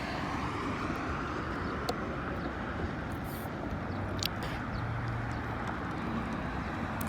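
Steady outdoor background noise with two or three faint clicks.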